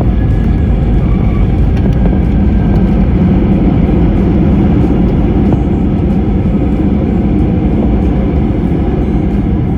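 Loud, steady low rumble inside a jet airliner's cabin on the landing roll: the engines and the wheels running on the runway. It swells a little in the middle and eases slightly near the end.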